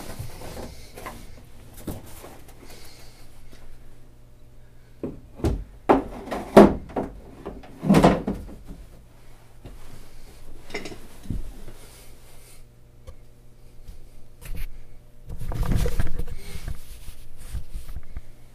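Handling noises of someone moving about in a small room: a cluster of sharp knocks and thumps around the middle, two more a little later, then a longer rumbling shuffle near the end as he sits down at the keyboard. A steady low hum runs underneath.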